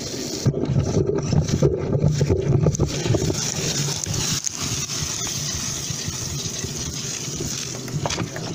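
Ditch Witch JT9 horizontal directional drill at work: the rig's engine running with a low rumble under a steady hiss of drilling fluid spraying through the soil as the drill head bores into the pit.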